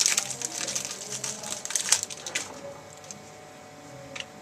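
Crinkling of a trading-card pack wrapper as a pack is torn open and the cards handled, dense for the first two seconds or so, then only a few light clicks.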